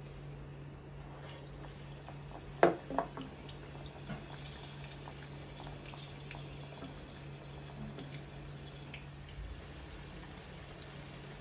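Batter-coated stuffed chillies frying in hot oil, the oil sizzling and bubbling, over a steady low hum. A sharp crack about two and a half seconds in is the loudest sound, followed by a few smaller cracks and then scattered small pops and clicks.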